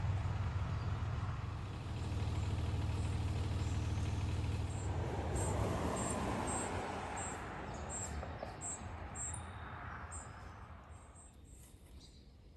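A passing road vehicle's low rumble that swells about five seconds in and fades away near the end, with a small bird chirping in short, high, repeated notes.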